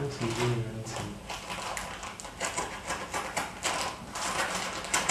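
Hands handling a tablet's box and packaging, making irregular clicks and short rustles.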